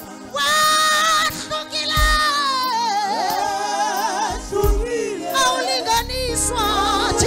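Gospel song with a woman singing the lead melody, entering about half a second in, over sustained keyboard chords and occasional low drum beats.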